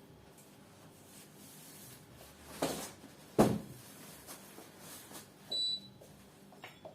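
Household handling sounds: a brief rustle, then a sharp knock about three seconds in, followed by a short high-pitched beep.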